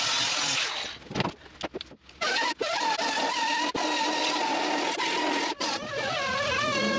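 Angle grinder grinding steel sheet metal, dropping out and sputtering for about a second as the disc comes off the work, then running again with a steady whine, broken by a couple of short dips and wavering in pitch near the end.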